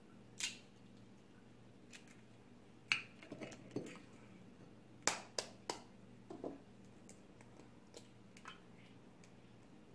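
Eggs being cracked into a glass bowl: short sharp taps and shell crackles, with three quick taps about five seconds in. A faint steady hum runs underneath.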